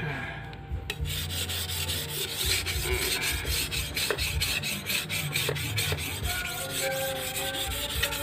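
A88-steel golok blade being sharpened by hand on a whetstone: a steady rasping scrape of repeated back-and-forth strokes, which pick up about a second in.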